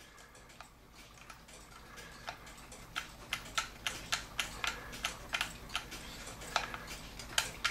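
Quick, irregular small clicks and ticks, starting about two seconds in, as a gear held on by a friction spring is twisted and worked off its arbor on a wood-plate clock movement.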